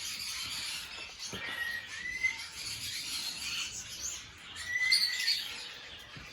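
A flock of lovebirds chirping, with many short, high calls overlapping one another.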